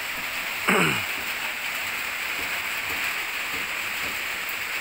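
Steady rain falling, an even hiss, with a short sound that falls steeply in pitch about a second in.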